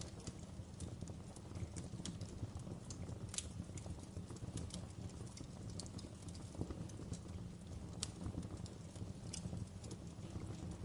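Birchwood log fire crackling: irregular sharp snaps scattered over a low, steady rumble of the burning fire.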